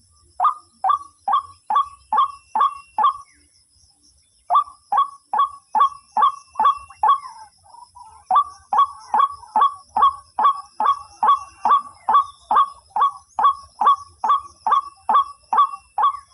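White-breasted waterhen (ruak-ruak) calling: a rapid, even series of sharp, loud calls, about two to three a second, broken by two short pauses in the first half and then running on without a break.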